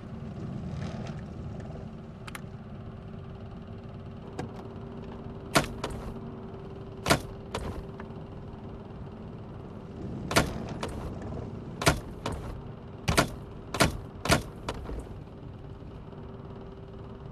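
Cabin sound of a moving car: the engine and road noise make a steady low drone. From about five seconds in there are about eight sharp clicks at uneven intervals, and these are the loudest sounds.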